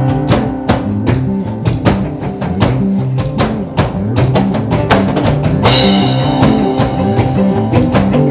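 Band music: a drum kit keeps a steady beat under held bass and chord notes, with a cymbal crash a little past halfway.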